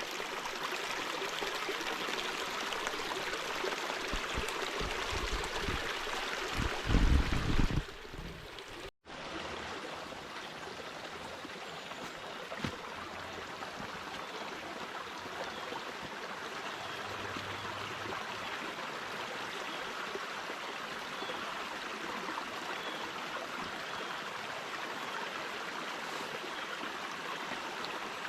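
Small shallow creek running steadily over rocks. About seven seconds in there are a few loud low rumbles on the microphone.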